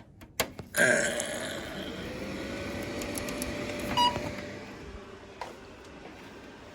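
A Lenovo P620 workstation powering on: a few clicks, then its cooling fans spin up with a whir whose tone rises slightly and then holds. There is a short beep about four seconds in, and the fans ease down after about five seconds.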